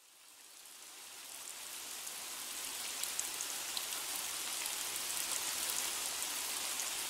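Steady rain falling, with scattered small drop ticks, fading in from silence over the first few seconds.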